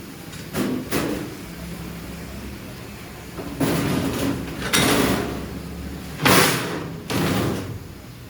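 A series of short scraping and knocking sounds: two brief ones about half a second in, then four longer ones in the second half, the loudest about six seconds in.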